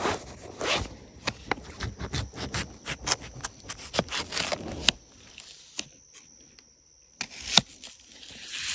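A knife drawn from a Toadfish sheath and the sheath unfolded into a plastic cutting board, then the knife peeling and trimming the papery skin of an onion on it: a run of small clicks, rubs and scrapes, quieter after about halfway, with one sharp click near the end.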